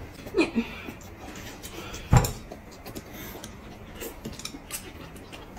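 Quiet eating sounds at a table: chopsticks clicking against ceramic noodle bowls, with one louder knock about two seconds in.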